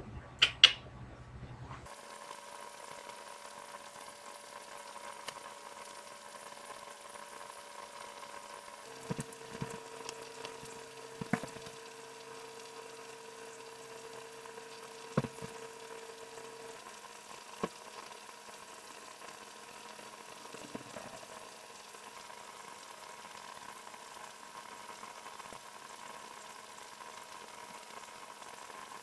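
Faint, steady hiss with a low hum, broken by a few soft clicks.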